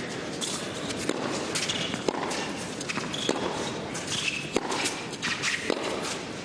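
Indoor tennis arena ambience between points: a steady crowd murmur with scattered footsteps and short knocks, and a few brief high squeaks.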